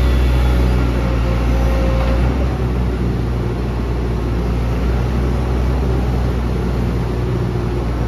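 2007 Hitachi ZX135US tracked excavator's diesel engine running steadily while the boom and arm are moved on the hydraulics; the engine note eases slightly a little over two seconds in.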